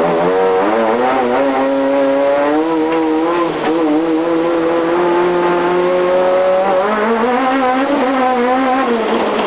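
Renault Clio Maxi Kit Car's four-cylinder rally engine at full effort, heard from inside the cockpit: the revs climb over the first two seconds, hold high for several seconds, drop sharply about seven seconds in, then climb again and dip once more near the end.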